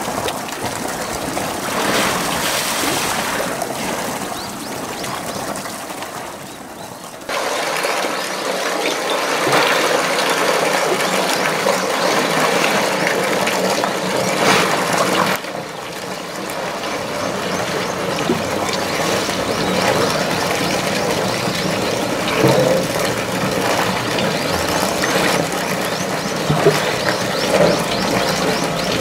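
Pool water splashing and sloshing as two polar bears wrestle and swim in it. The sound is a steady wash that changes abruptly about 7 and 15 seconds in.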